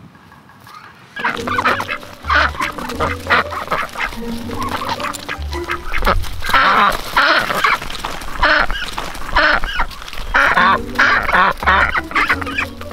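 A flock of domestic ducks, Khaki Campbells among them, quacking loudly over and over, starting about a second in.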